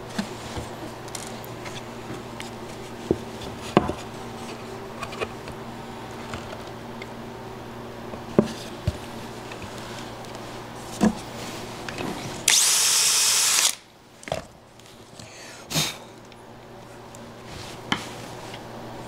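Scattered clicks and knocks of a steel piano hinge and hardware being handled on plywood over a steady low hum. About two-thirds of the way in, a power drill runs loudly for about a second, drilling a pilot hole.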